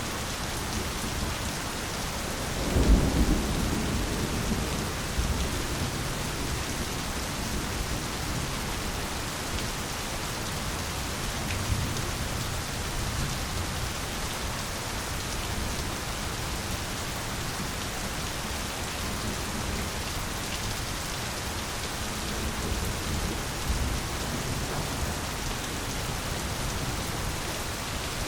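Steady rain pouring onto foliage and other surfaces. About three seconds in there is a low thunderclap that fades over a second or two, and fainter low rumbles come later.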